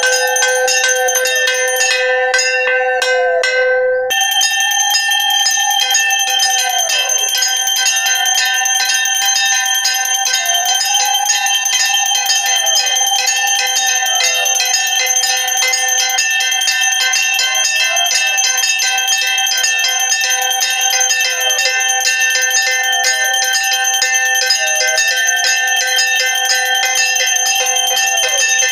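Brass puja hand bell rung continuously, a steady ringing whose pitch wavers every second or two as it swings.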